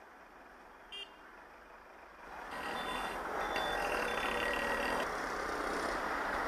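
Street and vehicle noise that grows louder about two and a half seconds in, with a vehicle's high reversing beeps for a couple of seconds. A short beep comes about a second in.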